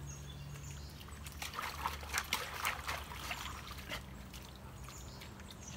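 Shallow creek water trickling and splashing, busiest between about one and a half and four seconds in with a run of short irregular splashes as dogs wade and nose through it.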